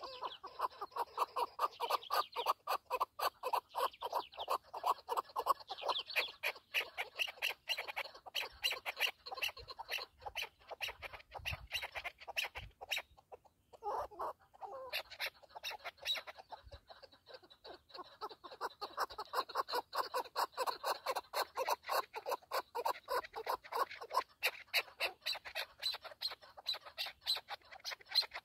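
Chukar partridge calling: a long, fast run of clucking notes, several a second, breaking off briefly about halfway through and then going on again.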